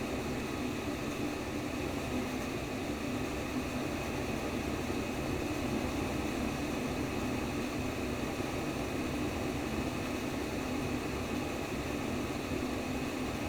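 Simulated womb sound played as a steady white-noise whoosh. It is an even, unchanging rushing noise, heaviest in the low-middle range.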